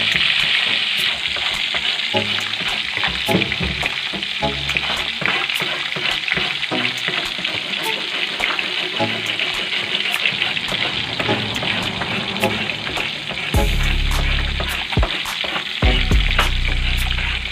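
Carp steaks frying in hot oil in an aluminium wok: a steady sizzle with many small crackling pops.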